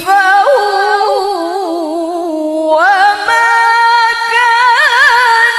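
A woman reciting the Quran in the melodic murattal/tilawah style, unaccompanied and amplified through a microphone, holding long ornamented notes with wavering embellishments. About three seconds in her voice glides up to a higher, sustained pitch.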